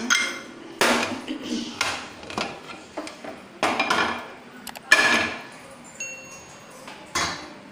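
Aluminium pressure cooker lid being twisted open and lifted off the pot, with about six sharp metal clanks and scrapes. The cooker has been depressurised after its whistles.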